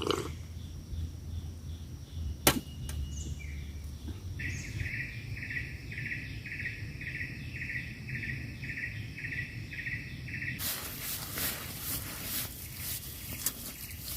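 Outdoor nature ambience: a steady high-pitched drone with a low hum under it, and a sharp click near the start. A rhythmic animal call repeats about twice a second for some six seconds, then gives way to dense rustling and crackling near the end.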